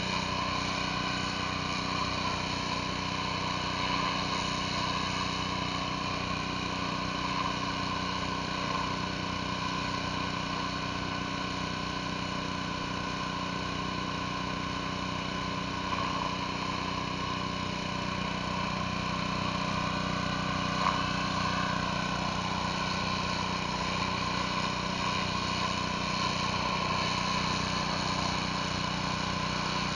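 Gas pressure washer engine running steadily under load while a surface cleaner sprays concrete, a constant engine hum with an even hiss of water spray.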